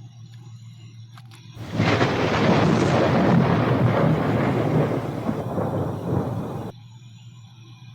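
A loud rushing rumble that starts suddenly about a second and a half in, thins out as it goes, and cuts off abruptly near the end.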